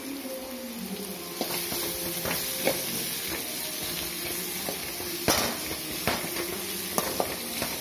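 Sliced onions and green chillies sizzling in hot oil in an aluminium kadai while a metal slotted spatula stirs them, scraping and clicking against the pan. The sizzle gets brighter about a second and a half in, and the loudest knock of the spatula on the pan comes about five seconds in.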